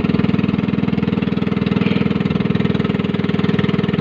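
Small engine of a motorized outrigger banca running steadily under way, a fast even chugging.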